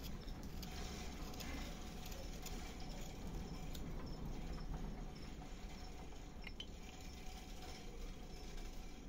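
A small knife whittling a wooden carving by hand: faint scraping cuts with scattered small clicks as shavings come off the wood.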